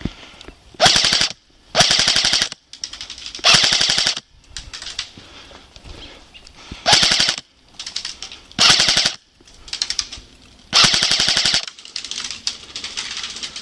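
Airsoft gun firing on full auto: six loud bursts, each half a second to a second long, with fainter rattling bursts in between.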